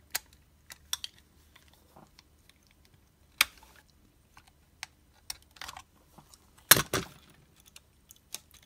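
Scattered small clicks and taps of a die-cast model car's body and plastic chassis parts being handled and worked apart, with a louder cluster of clacks about two-thirds of the way through.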